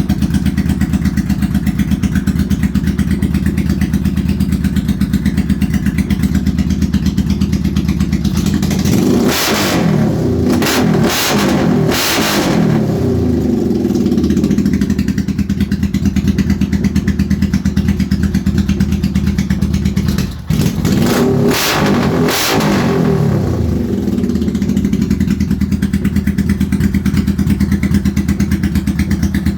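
1983 Honda VT750 Shadow V-twin, carburettors rejetted to 130/45, idling steadily with a throbbing beat. It is blipped up and back down several times about nine seconds in, settles back to idle, then is revved again in a second short group of blips a little past twenty seconds before returning to idle.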